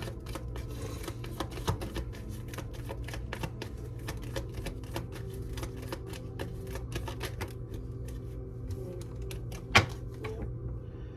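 Tarot deck being shuffled by hand: a fast, continuous patter of card clicks and flutters, with one louder snap of the cards near the end before the shuffling stops.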